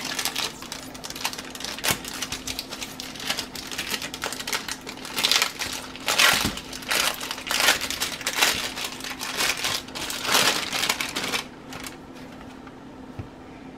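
Clear plastic wrapping crinkling and rustling as it is peeled off a roll of pie crust dough, in a run of irregular crackles that stops about two seconds before the end.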